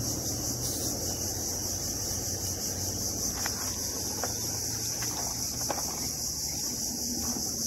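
Steady high-pitched insect chorus, trilling without a break. A few faint ticks come through about halfway in.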